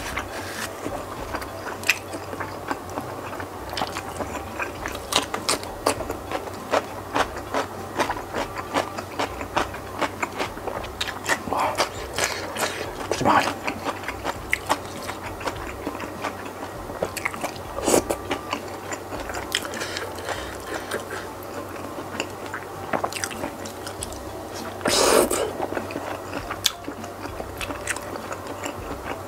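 Close-miked chewing and biting of meatball (bakso) in spicy chili sauce, with wet mouth smacks and many short sharp clicks. One louder, longer rushing burst comes near the end.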